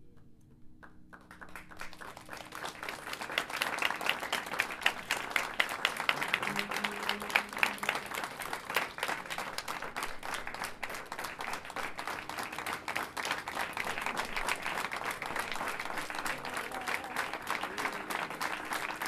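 Theatre audience applauding. The clapping starts about a second in, swells over the next few seconds and keeps up steadily.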